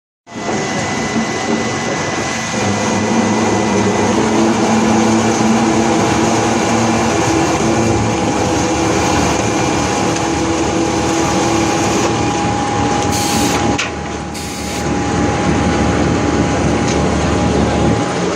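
Rotary veneer peeling lathe with built-in clipper running: a loud, steady mechanical din with a constant motor hum. Two brief, sharp rushes of noise come about two-thirds of the way through.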